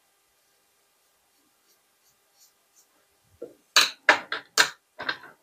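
Faint scratching of a watercolour paintbrush working on paper, then about five sharp, loud taps in quick succession near the end.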